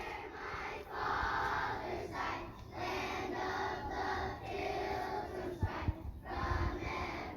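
A group of children's voices together in unison, in short phrases about a second long with brief breaks between them.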